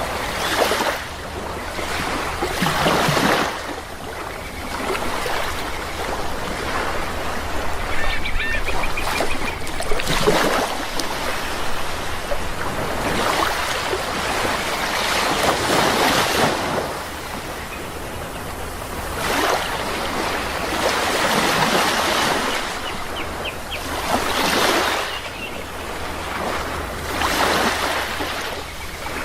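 Sea waves breaking and washing in, swelling and fading every few seconds, with a few faint bird calls.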